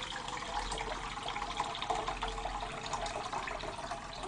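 Water poured in a steady stream from an electric kettle into a frying pan, splashing as the pan fills to boil instant noodles.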